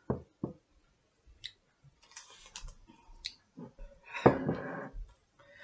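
Mouth clicks and lip smacks from tasting a sip of a drink, then a knock about four seconds in as the mug is set down on the table.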